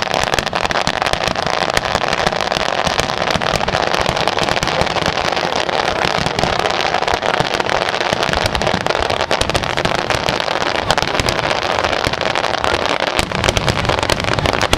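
Large aerial fireworks barrage: rapid, overlapping shell bursts and crackling that run on without a pause.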